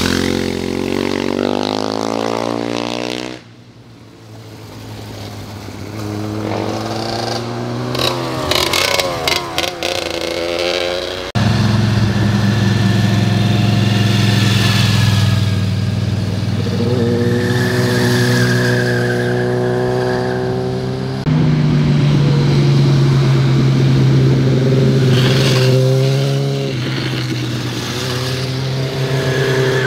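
Motorcycle engines, several bikes in turn, riding through a tight bend. The engine note falls as a bike slows into the corner and climbs through quick gear changes as it pulls away. The sound switches abruptly from one bike to the next a few times.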